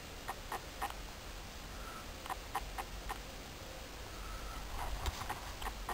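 Light metallic clicks from the mechanism of an Ellwe 2FB scale model two-stroke diesel engine that is not running, coming in short irregular groups of three or four.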